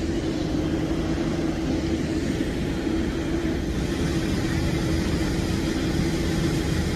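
Steady machinery noise on an airport apron: a continuous low engine rumble with a constant droning hum.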